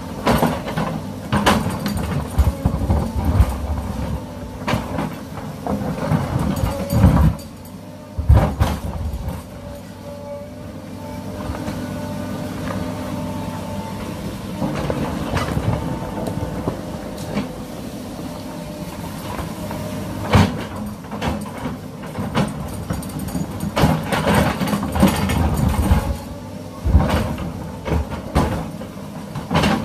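Small electric gear motors of a toy excavator whirring as its arm and bucket move, with plastic gears rattling and repeated sharp clicks and knocks. The whine steadies through the middle, and the clicking is thickest in the first and last few seconds.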